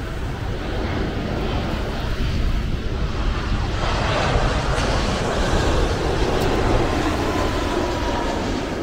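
Twin-engine jet airliner on landing approach, passing low overhead. Its engine noise swells to a loud rush, loudest about four to seven seconds in, with a thin steady whine over it in the second half.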